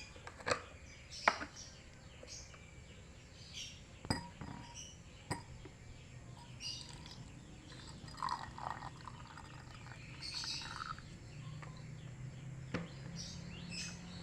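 Warm water poured from a container into a glass, with a few sharp clicks of glass and container.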